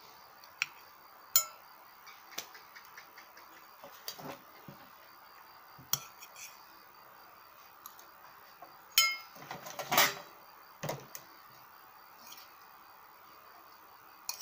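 Metal spoon clinking and scraping against stainless-steel bowls as rice filling is scooped, in scattered separate knocks, with the loudest cluster of ringing clinks about nine to ten seconds in.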